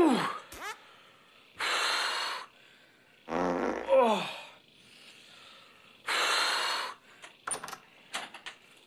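A man groaning in stomach pain from gas cramps: a falling 'ooh' at the start and another pitched groan about three and a half seconds in, with two hissing, strained breaths of about a second each around two and six seconds in. A few small clicks come near the end.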